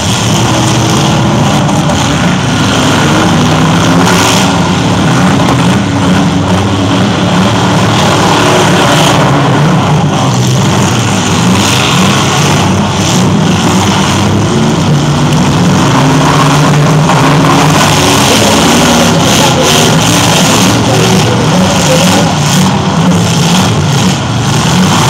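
Several demolition derby cars revving hard at once, their engine pitch rising and falling, with now and then a bang as cars collide.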